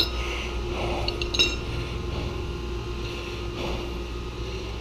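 Metal hand tools and fittings clinking as they are handled and set down: one sharp clink at the start and a few more ringing clinks a little over a second in. A steady low hum runs underneath.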